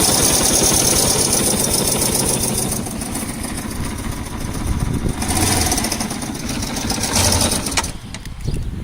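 Yamaha SR 125's single-cylinder four-stroke engine running, its loudness dipping and rising a few times before it dies down near the end. The engine has a knock that the owner suspects is the connecting rod.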